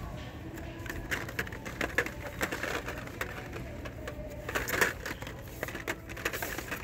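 Hot Wheels blister-pack cards (cardboard backs with plastic bubbles) clicking and crinkling as a hand flips through them on a store peg: an irregular run of sharp crackles, the loudest about two seconds in and again near five seconds.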